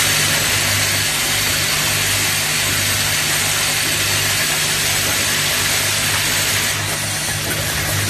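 Automatic cabinet hinge assembly machine running: a steady low hum under a loud, even hiss, the hiss easing off about seven seconds in.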